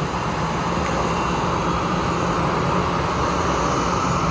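Jet airliner engines, a steady loud rush of engine noise growing slightly louder.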